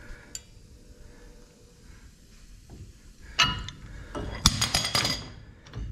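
Metal clanking from a pipe wrench with a steel cheater pipe being heaved on a jammed lug nut on a wheel stud: one loud ringing clank about three and a half seconds in, then a quick run of sharp clinks.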